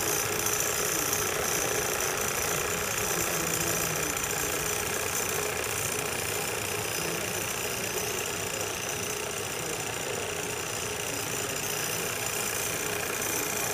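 Several toy live-steam engines running together, a steady mechanical whirr with the hiss of escaping steam.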